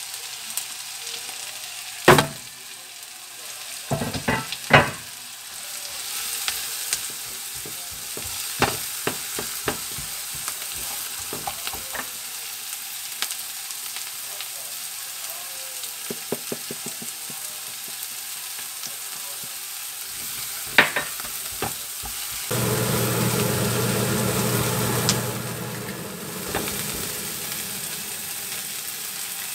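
Diced onion, green onion and Korean zucchini sizzling in butter in a nonstick pan, with a silicone spatula stirring and now and then knocking against the pan. A steady low hum comes in for a few seconds near the end.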